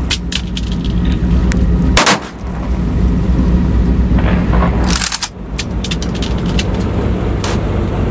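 A steady low engine drone, broken by several sharp knocks and thumps, the loudest about two seconds in and again about five seconds in.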